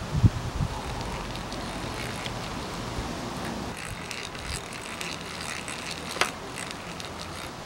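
A drill boring a hole through a thin plywood part, running steadily, with a sharp knock just after the start and another about six seconds in.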